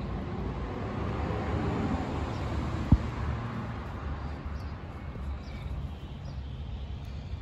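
Steady outdoor street noise with a low traffic rumble, swelling as if a vehicle passes about one to three seconds in, and one sharp click about three seconds in.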